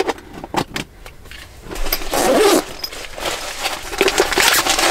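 A few light knocks, then rustling and crinkling as a fabric pouch and the packets inside it are rummaged through by hand.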